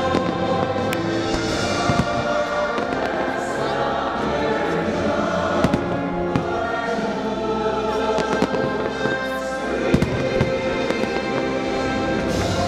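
Fireworks going off in sharp bangs every few seconds over loud show music with a choir singing.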